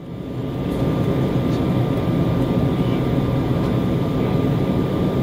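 Steady cabin rumble inside an Embraer E190 on the ground, its GE CF34 turbofans at idle together with the rush of cabin air, with a thin steady whine over it. The sound drops away for a moment at the very start and builds back within about half a second.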